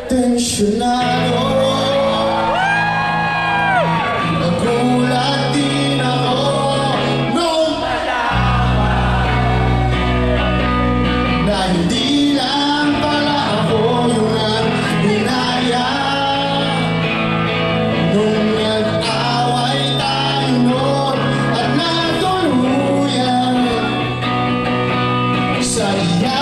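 Live rock band playing: a male singer over electric guitars, bass guitar and drums, with shouting voices heard over the music.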